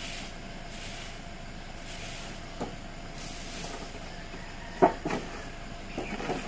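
A stiff bundle broom sweeping dry leaves on concrete into a dustpan, in short swishing strokes. Then a few sharp knocks and clacks of the broom and dustpan, the loudest about five seconds in and several smaller ones near the end.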